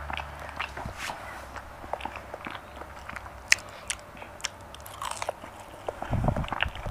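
Close-miked chewing of potato wedges: wet mouth clicks and soft crunches, with a short low thud about six seconds in.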